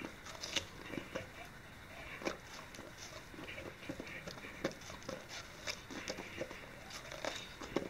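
English Springer Spaniel biting, chewing and licking at a slice of watermelon: irregular short crunches and mouth clicks at uneven intervals.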